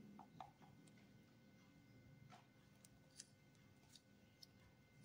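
Near silence: room tone with a few faint, short clicks scattered through it.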